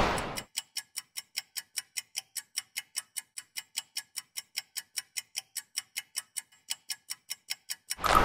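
Clock-ticking countdown sound effect: about four even, high-pitched ticks a second for roughly seven and a half seconds, timing the answer to a quiz question. A brief rush of noise fades out just as it begins.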